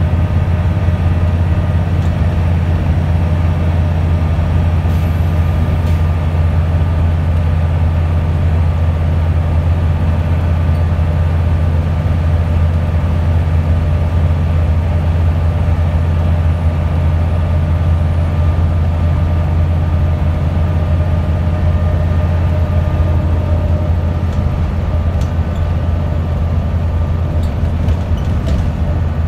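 Wright Scania Solar single-deck bus driving at a steady pace, heard from inside the passenger cabin: a constant low engine drone mixed with road and tyre noise, with a faint steady whine above it.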